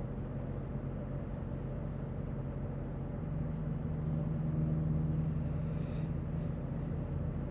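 3.0-litre Duramax inline-six turbo diesel idling, heard from inside the cab: a steady low hum that grows a little louder a few seconds in, then settles. The idle is raised because the engine is running a diesel particulate filter regeneration.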